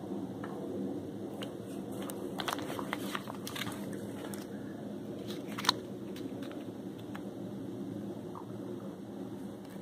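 Scattered small clicks and crackles over a steady low rumble, the sharpest click about five and a half seconds in.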